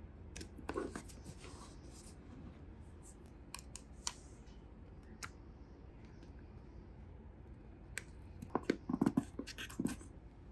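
Small plastic toy pieces being handled and set down: scattered light clicks and taps, with a quick cluster of clicks and duller knocks near the end, over a low steady hum.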